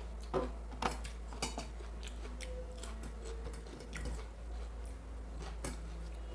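Close-up eating sounds of mutton curry and rice: chewing with wet mouth clicks and a few sharp taps, over a steady low hum.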